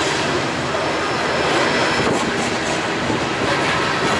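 Coal train's steel wheels rolling on the rails as aluminium coal gondolas pass a few feet away: a steady, loud rumble and rattle, with a few clicks about halfway through.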